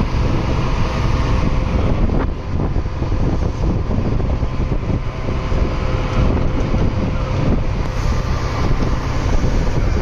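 Fishing trawler's engine running steadily, with wind buffeting the microphone.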